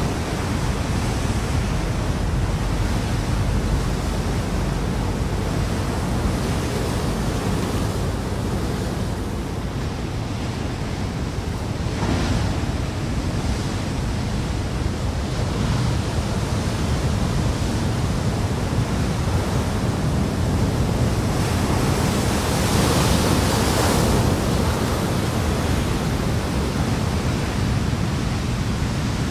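Ocean surf breaking on a rocky shore: a steady rush of water noise that swells louder about twelve seconds in and again for a few seconds about two-thirds of the way through.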